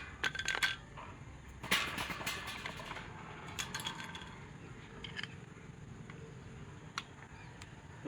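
Small metal tools and parts clinking and knocking together in irregular clusters, as in hands-on work on an electric fan motor, with one sharp click about seven seconds in.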